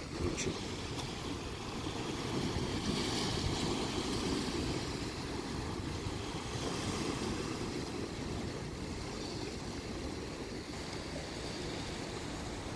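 Sea waves washing against a rocky shore, with wind buffeting the microphone as a steady low rumble.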